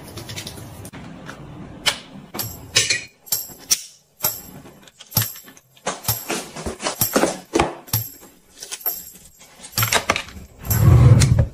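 Close-up handling of small accessories: packets crinkling and plastic and metal pieces clicking and tapping in quick, irregular bursts. A louder, deeper rustle lasting about a second near the end.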